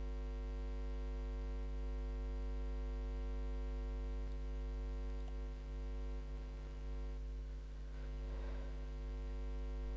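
Steady electrical mains hum: a constant low buzz with a ladder of evenly spaced overtones that does not change.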